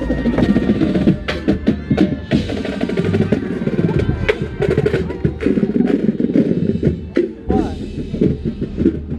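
Drum corps playing: the drumline, with snare rolls and bass drum hits, under the horn line. Sharp knocks are scattered through it.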